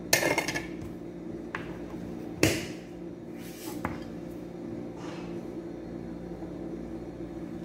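Kitchen handling sounds: a short clatter right at the start, one sharp knock about two and a half seconds in, and a few lighter clicks and rustles, over a steady low hum.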